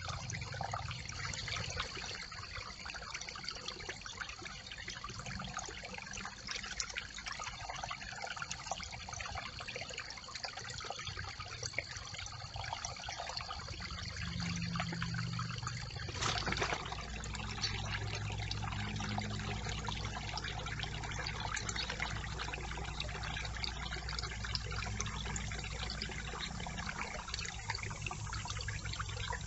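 Brook water trickling steadily over and through a beaver dam of sticks. A steady high-pitched tone runs through the first half and stops about halfway through.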